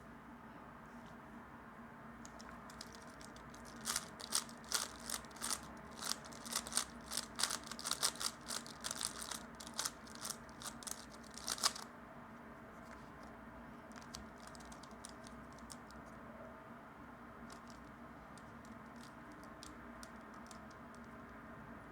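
3x3 Rubik's cube being turned fast in a speedsolve: a dense run of plastic clicks and rattles from the layers turning for about eight seconds, then fainter, sparser clicks.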